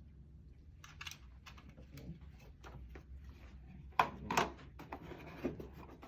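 Scattered light clicks and taps of hands handling a plastic wireless keyboard and mouse, with two sharper knocks about four seconds in.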